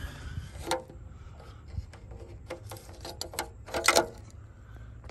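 Pressure cap on a plastic coolant reservoir being twisted and lifted off by hand: a run of small clicks and scrapes, with louder clacks just under a second in and about four seconds in.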